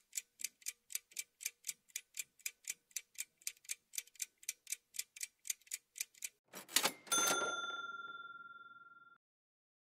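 Countdown-timer sound effect: a clock ticking about four times a second for roughly six and a half seconds. It ends in a short burst and a ding that rings out and fades over about two seconds, marking the answer reveal.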